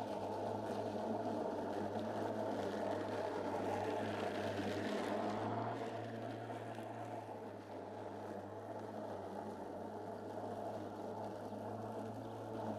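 Greenworks electric lawn mower running while cutting grass and dandelions: a steady motor and blade hum, louder in the middle as the mower comes close, with a brief dip in pitch about five seconds in.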